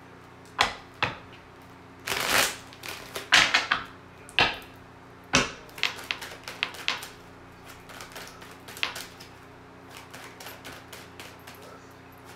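A deck of tarot cards being shuffled and handled: a few louder swishes and slaps in the first half, then a run of lighter clicks and taps.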